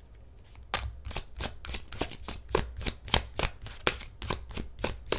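A deck of tarot cards being shuffled by hand: a quick run of short papery card slaps, about five or six a second, starting about a second in.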